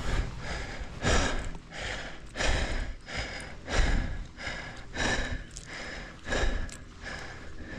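A mountain biker's heavy, regular breathing: loud breaths about every 1.3 seconds, six in all.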